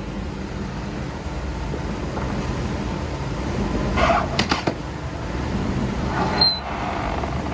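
Diesel engine of a Merlo telescopic handler running steadily, a low rumble that builds slightly. About four seconds in there is a quick cluster of sharp metallic clicks and knocks.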